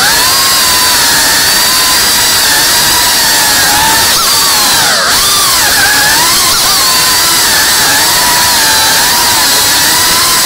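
FPV quadcopter's brushless motors and propellers whining loudly, the pitch dipping and climbing again with each throttle change.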